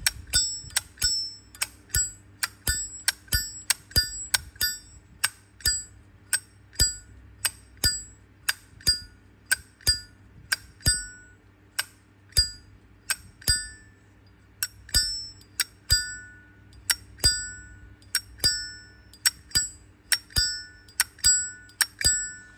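Zippo lighter lid flicked open and snapped shut over and over, about two clicks a second, the openings giving a clear metallic ping. This is the 'bell' ring (âm chuông) that marks the lid hinge and cam of this original, unrepaired lighter, a 2007 case with a 2006 insert, as in good order.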